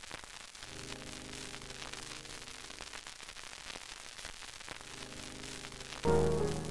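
Soft background music: a quiet held chord over steady hiss, then louder piano music starting about six seconds in.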